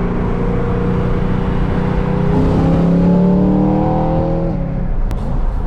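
BMW E92 M3's V8 engine pulling hard under acceleration, its pitch rising steadily for about four seconds and then dropping suddenly, as at a gear change or lift-off, with the injectors freshly replaced.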